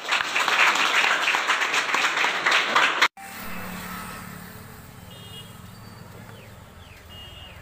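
Crowd applauding in a hall, a dense patter of clapping that cuts off abruptly about three seconds in. Then comes quieter outdoor ambience: a steady low rumble with a few faint high chirps.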